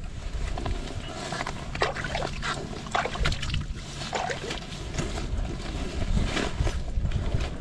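Wind buffeting the microphone as a low, uneven rumble, with scattered short clicks and rustles from an ice angler shifting on a foam mat and handling gear at the ice holes.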